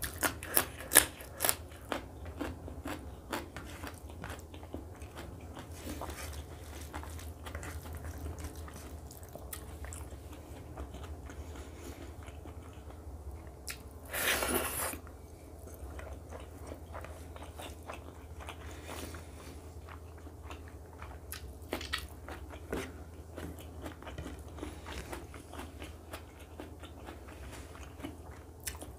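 Close-up eating sounds of a person chewing rice and egg curry. There are crunchy bites into a fresh green chili about a second in, then steady wet chewing with small mouth clicks. About halfway there is a brief louder noisy stretch as a big handful of rice goes into the mouth. A low steady hum runs underneath.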